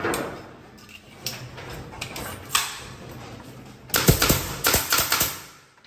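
Pneumatic nail gun firing a quick run of sharp shots into a wooden ceiling batten, several a second for about a second and a half, starting about two-thirds of the way in. Before that come a few light knocks of wood being handled.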